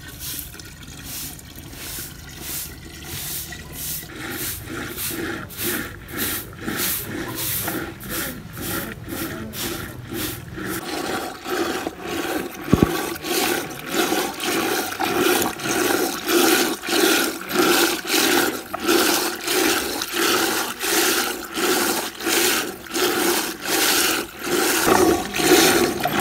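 Dairy being churned for desi butter in a clay pot with a wooden churning stick: rhythmic sloshing and splashing, about one and a half strokes a second, starting about four seconds in and growing louder. It is the stage where butter is separating out, with a yellow layer forming on top.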